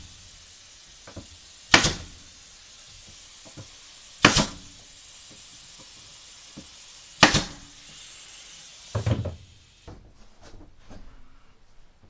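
Sharp knocks from floor-installation work: five strong strikes, about every two to three seconds, over a steady hiss that cuts off about ten seconds in, followed by softer scattered clicks and taps.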